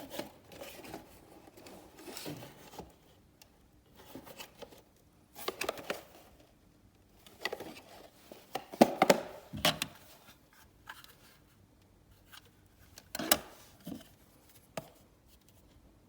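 Irregular rustling and handling noises with light knocks, coming in short clusters, loudest about nine seconds in.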